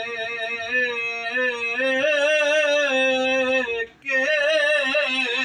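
A man singing Punjabi Sufi kalam solo in long held notes with vibrato. The pitch steps up three times in the first two seconds, and there is a short break for breath about four seconds in.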